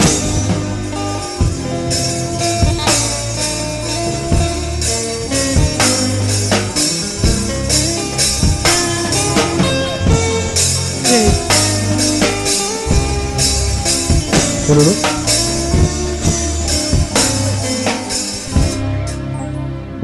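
Instrumental gospel band music: a drum kit keeping a steady beat under plucked guitar, with no singing.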